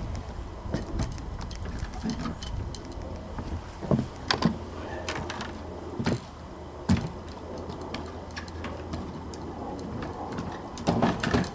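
Scattered knocks and clatters as fishing rods are picked up and set into the rod holders of a loaded fishing cart, with footsteps on a plywood deck.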